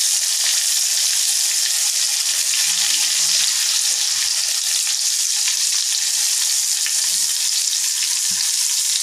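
Butter melting and sizzling in hot refined oil in a kadhai, a steady hiss, as it is stirred with a flat metal spatula.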